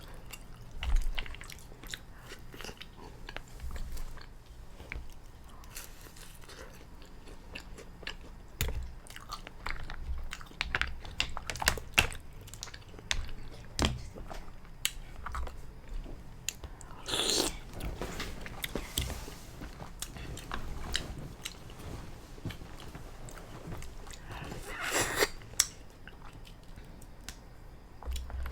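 Close-miked mouth sounds of a person eating black lip mussels: wet chewing and lip smacking in many short clicks. There are longer, louder slurps about two-thirds of the way in and near the end.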